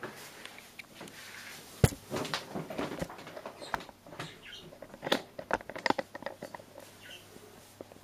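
Irregular rustling and clicking from a handheld camera being moved about, with one sharp knock about two seconds in and bursts of clicks around three and six seconds in.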